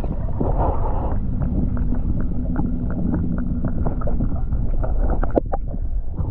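Water sound heard through a camera held under the water: a dense, muffled low rumble with many scattered small clicks and crackles. It drops off suddenly at the very end as the camera comes out of the water.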